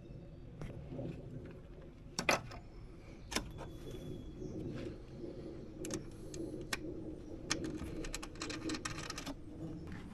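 Small metal clicks and clinks of aluminum hood latch parts and tools being handled during assembly, with a quick run of rapid clicks about eight seconds in, over a steady low hum.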